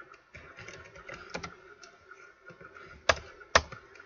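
Keys being typed on a computer keyboard: a few scattered light keystrokes, then two louder key taps about half a second apart near the end.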